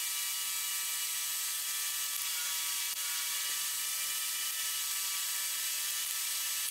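Steady whir of an electric fan running, with a constant faint high whine and no other distinct sound.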